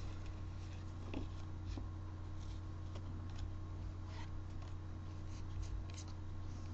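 Faint rustling and light ticks of trading cards and foil booster packs being handled, over a steady low hum.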